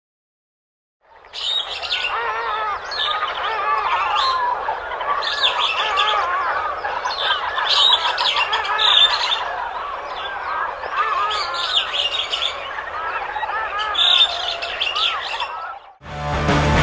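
Many songbirds singing together: a dense chorus of chirps, trills and warbles starting about a second in. It cuts off near the end, where loud rock music begins.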